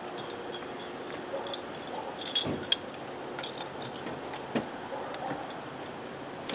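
Scattered light metallic clinks and jingles, most of them about two seconds in, over steady background noise.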